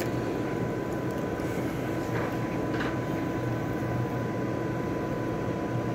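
Steady fan whir with a low hum and a thin steady tone, and a couple of faint clicks a little past two seconds in.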